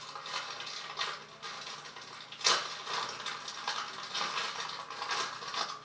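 Groceries being handled and unpacked: irregular rustling and crinkling of packaging, with one sharper knock about two and a half seconds in as an item is set down.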